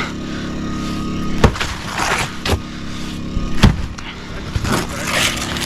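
An engine running steadily, with a few sharp knocks and bangs over it, the two loudest about a second and a half in and near the four-second mark.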